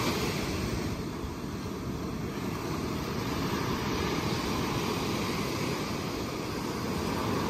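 Steady rush of surf on a beach, with wind noise on the microphone.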